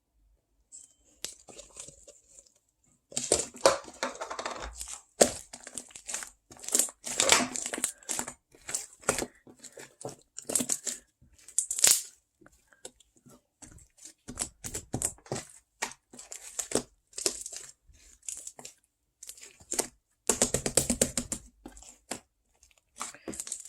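Close-miked crinkling and tearing sounds with sharp clicks, irregular and on and off, starting after a second or so of quiet.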